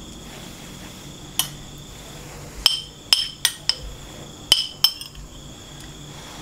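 Metal spoon clinking and scraping against a ceramic soup bowl: about seven light, ringing taps, several in quick succession around the middle.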